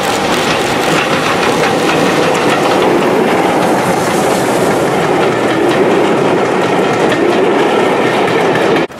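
BR Standard Class 5 steam locomotive 73156 and its train of coaches passing close by at speed, a loud steady rush of running gear with repeated clicks from the wheels on the rails. The sound cuts off abruptly near the end.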